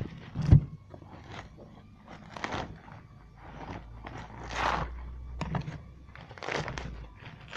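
Meat cleaver chopping into and prying apart a coconut's fibrous husk: one sharp chop about half a second in, then several rough crunching scrapes as the husk is split and worked loose.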